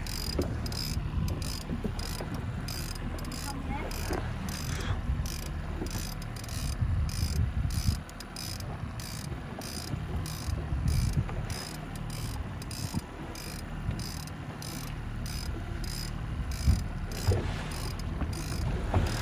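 Fishing reel being cranked steadily as a hooked salmon is reeled in, its gears clicking in an even rhythm of a few clicks a second, over the steady low hum of the boat's motor.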